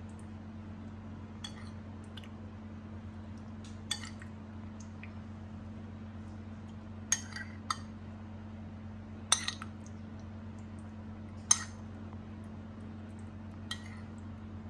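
A metal spoon clinks sharply against a bowl about seven times, a second or two apart, while scooping set jelly. A steady low hum runs underneath.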